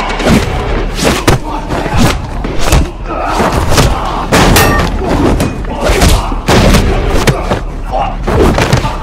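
Fast run of dubbed fight sound effects: punches and body hits landing several times a second, with whooshes and shouts or grunts, over background music.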